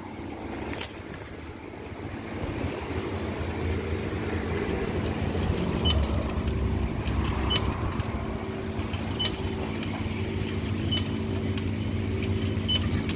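Self-serve car wash high-pressure pump running steadily on the rinse setting, a hum that builds up over the first couple of seconds and then holds. A short high beep sounds about every two seconds, with a few light clicks.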